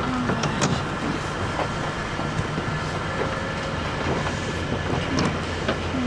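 Steady low engine rumble with a faint constant whine, the sound of an idling livestock transport truck, with scattered short knocks and clicks.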